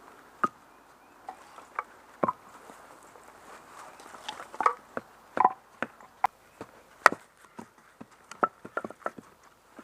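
Dry leaves and twigs on the forest floor crackling and snapping as the ground is scraped clear for a fire pit, in an irregular scatter of short sharp crackles.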